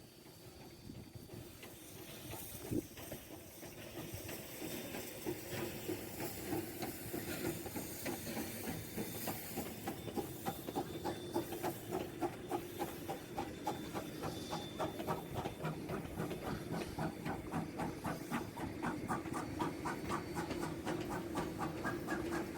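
A train approaching and growing steadily louder, with a hiss and a regular beat of about two to three strokes a second.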